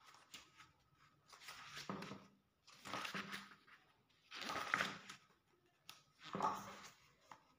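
Pages of a hardcover comic book being turned and handled: a series of soft paper rustles, about five in a few seconds.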